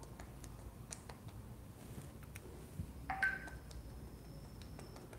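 Faint taps and scrapes of a paintbrush working oil paint. About three seconds in comes a short electronic beep with two tones, and a thin high tone lingers for about two seconds after it.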